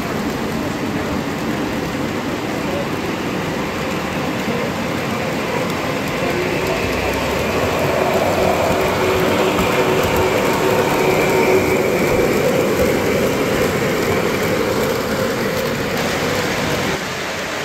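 Three-rail O gauge model freight trains running on the layout's track: a steady rolling clatter of the cars' wheels on the rails, a little louder through the middle as a model steam locomotive passes.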